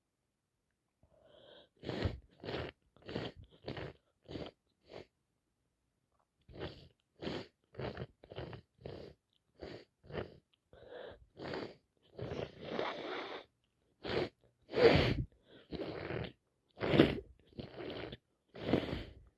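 A woman sneezing over and over with a heavy head cold: a run of short, quick sneezes, a brief pause, then a longer run that grows harder, with the strongest sneezes near the end.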